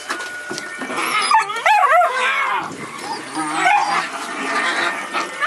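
Several dogs yipping, whining and barking at once, their overlapping calls rising and falling in pitch.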